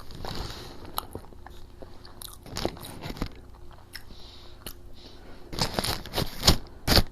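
Close-up mouth sounds of someone eating fried food: biting and chewing with crisp crunches and wet smacking clicks, coming in small clusters.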